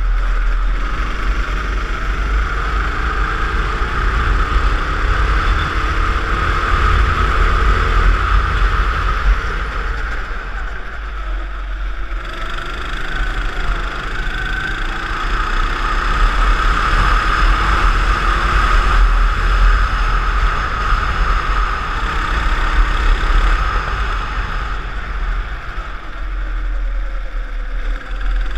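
Go-kart engine running under load during a lap, its note rising and falling as the kart slows for corners and speeds up again, dipping twice, with a heavy low wind rumble on the microphone of the kart-mounted camera.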